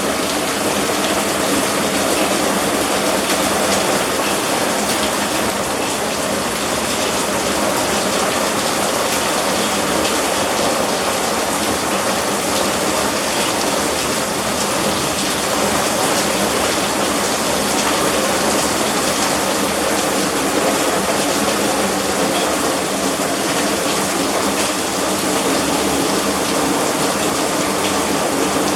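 Heavy hailstorm downpour: a steady, loud rush of rain with dense pattering of hard impacts.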